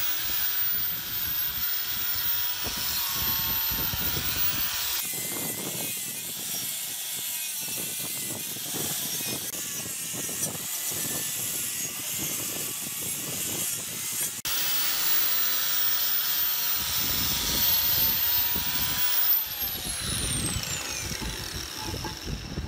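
Power tool running in several cut-together stretches, with a steady high whine; near the end a thin high tone falls steadily in pitch.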